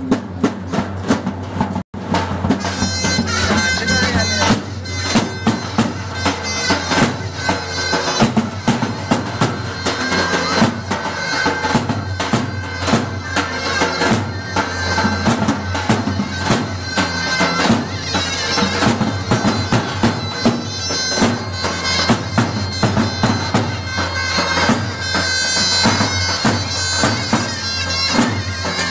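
Davul and zurna playing a folk dance tune: a reedy, sustained zurna melody over the regular beat of the big double-headed davul drum. The sound drops out for an instant about two seconds in.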